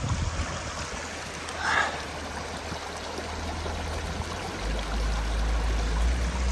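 A torrential mountain stream rushing steadily, with a low rumble underneath that grows louder about two thirds of the way in.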